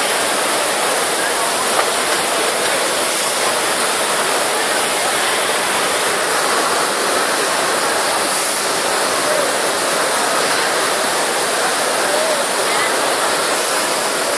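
Steady background noise of a busy exhibition hall, with indistinct voices mixed in.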